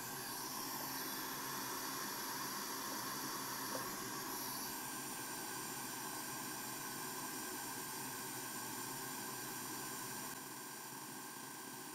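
Steady background hiss with a few faint steady tones, a little quieter about ten seconds in.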